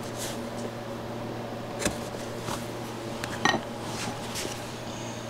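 Bench chisel paring waste from a rebate in softwood by hand: a few short, dry shaving hisses, with a sharp knock a little under two seconds in and a louder one with a brief metallic clink about halfway through, over a steady low shop hum.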